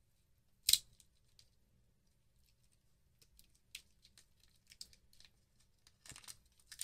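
Protective wrapping being torn and peeled off a Surface Pen by hand: one sharp rip about a second in, then scattered faint crinkles and rustles that grow busier near the end.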